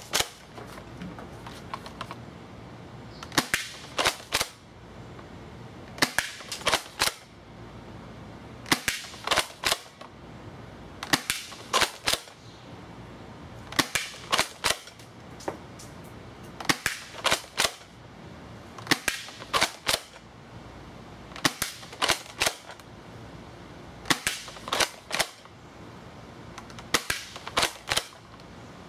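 Double Eagle M56A airsoft pump-action shotgun being fired about ten times, one shot every two to three seconds, each a quick cluster of sharp clicks and snaps. Each shot sends three BBs at once.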